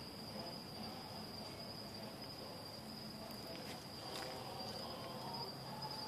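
Night insects chirring: one steady, high-pitched trill that runs on without a break, faint.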